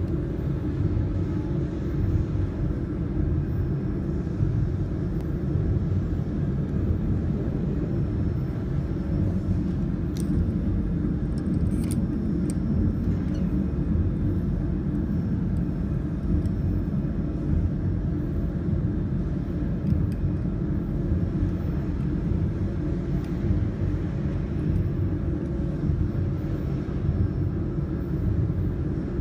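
Steady low rumbling hum of running machinery, with a few faint clicks about ten to thirteen seconds in.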